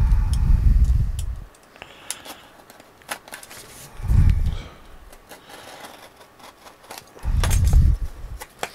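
Cardboard parcel handled on a desk while its packing tape is cut with a utility knife: three dull low thumps, at the start, about four seconds in and near the end, as the box is shifted and pressed down, with faint scratches and clicks from the knife between them.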